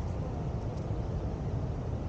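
Steady rushing noise of sea surf breaking on the beach.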